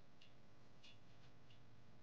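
A few faint, separate clicks of keys pressed on the Coldcard Q hardware wallet's small BlackBerry-style keyboard as a recovery-phrase word is typed in.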